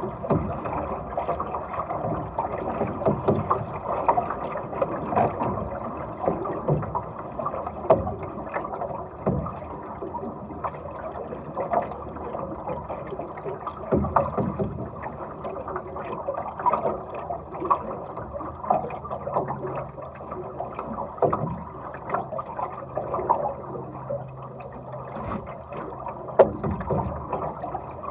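Water rushing along and slapping against the hull of a small sailing dinghy under way, with frequent short splashes over a steady rush.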